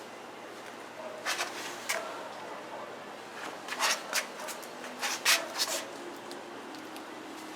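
Sandpaper rubbing over hardened body filler on a car panel: short, irregular scraping strokes, about eight of them, bunched in the middle of the stretch.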